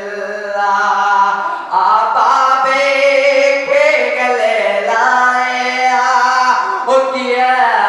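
A young man singing a noha, a Shia lament, unaccompanied, in long held notes that waver and slide between pitches.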